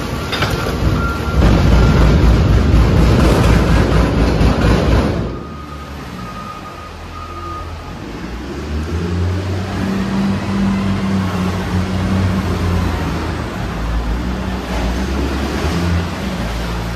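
A load of garbage pouring out of a garbage truck into a transfer-station pit, a loud rushing rumble for about five seconds that cuts off suddenly. After that, the diesel engine of a wheel loader runs with a steady low drone.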